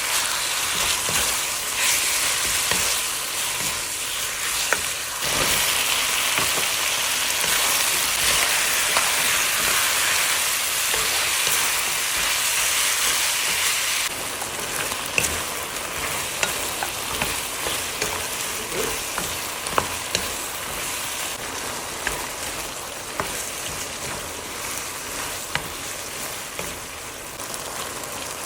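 Chicken with Thai eggplant frying and sizzling in a hot pan while it is stirred, with a utensil clicking against the pan now and then. The sizzle drops noticeably about halfway through.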